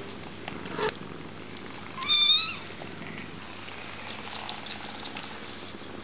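Sphynx kitten giving one short, high mew about two seconds in, lasting about half a second.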